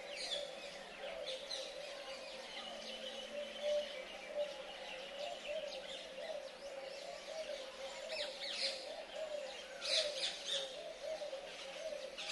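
Many birds chirping and calling together: quick high chirps over a continuous low warbling, with a few louder bursts of chirps around the middle and near the end.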